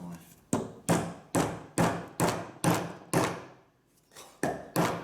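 Hammer blows driving a wall plug into an aerated concrete block: about eight sharp strikes at roughly two a second, with a short pause a little past the middle.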